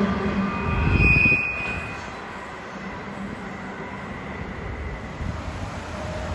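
Tail end of a freight train of empty container flat wagons rolling away over the rails, with a brief high wheel squeal about a second in. The rumble then fades away.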